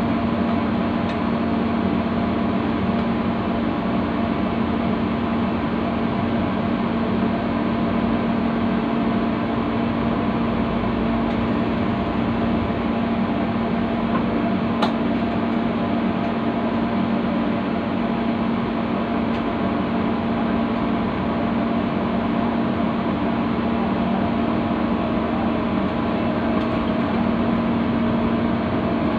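Diesel locomotive engine idling steadily, heard close up from on board, a constant hum with one faint click about halfway through.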